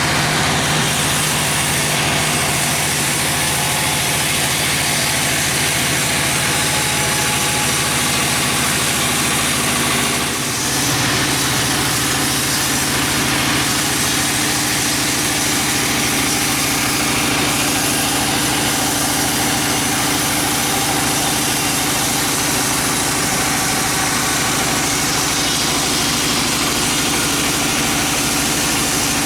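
Sawmill engine running steadily at a constant speed. About ten seconds in it briefly dips, then carries on with a slightly changed note.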